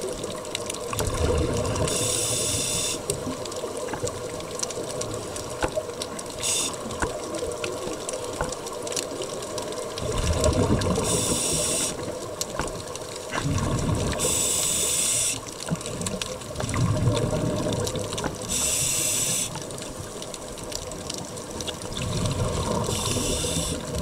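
Scuba breathing heard underwater through a diver's regulator: a hiss with each breath and a low bubbling rumble as the air is breathed out, repeating about every four seconds.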